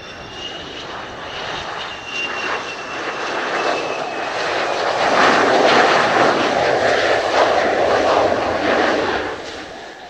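F-4EJ Kai Phantom II's two J79 turbojets on landing approach, passing low: a high whine that slides slightly lower, under a rushing jet noise that builds to its loudest over several seconds and drops off sharply near the end.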